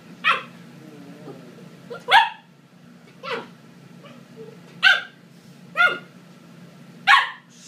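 A 12-week-old Pembroke Welsh Corgi puppy barking in play: six short yaps, spaced a second or so apart.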